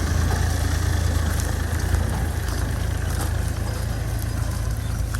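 Fiat 480 tractor's diesel engine running steadily with an even low rumble.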